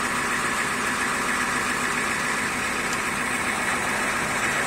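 Fire truck engine idling steadily, heard from inside the cab.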